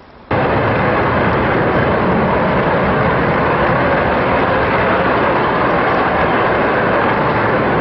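Jet aircraft engines running with a loud, steady roar that starts abruptly just after the beginning and holds level.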